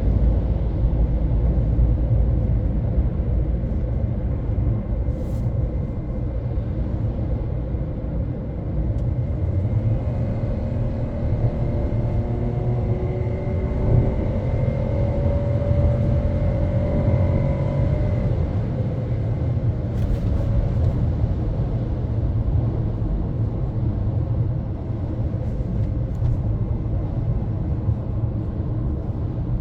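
MG ZS's 1.0-litre turbocharged three-cylinder engine and road noise heard from inside the closed cabin at road speed: a steady, heavy low rumble. Partway through, faint tones slowly rise in pitch over several seconds.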